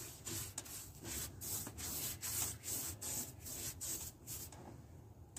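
Small bristle brush stroking buffing compound onto oxidized fiberglass gelcoat, short brushing strokes about three a second that stop near the end.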